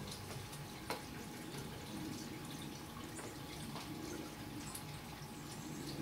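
Water dripping from wet trees and leaves after rain: scattered light drips and ticks over a faint steady background, with one sharper tick about a second in.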